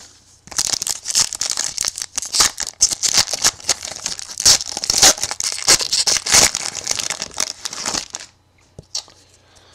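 A trading card pack's wrapper being torn open and crinkled by hand: a dense crackling rustle that starts about half a second in and stops about eight seconds in.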